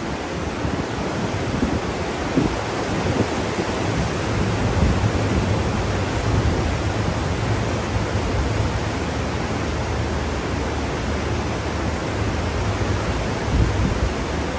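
Steady rushing noise of wind and sea along a ship's open promenade deck, with a low rumble of wind buffeting the microphone that swells and eases.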